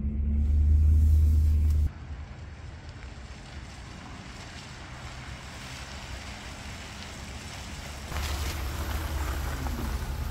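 Low rumble of a Ford F-150 pickup heard from inside the cab as it drives, cutting off after about two seconds to steady wind on the microphone outdoors. Near the end the pickup pulls up close, its engine and tyres on gravel growing louder.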